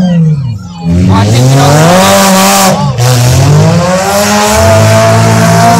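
Car engine revving hard at full throttle, its pitch climbing and dropping back several times, with a brief lift-off about half a second in.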